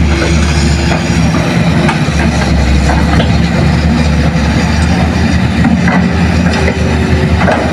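Hitachi hydraulic excavator's diesel engine running steadily under load as it swings a full bucket of earth toward a dump truck, with a low, even hum and a few faint knocks.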